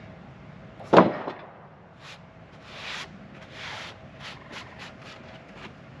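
Freshly sawn pine boards being handled: a board is set down on the stack with a loud wooden clack about a second in, followed by softer knocks and scrapes as the boards are slid and straightened.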